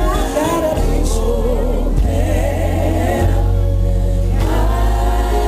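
Live gospel music: a band with a strong, sustained bass under a singing voice that slides and wavers across held notes without clear words.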